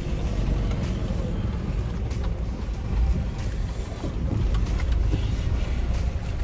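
A car running on the road, a steady low rumble of engine and road noise, with a few faint clicks.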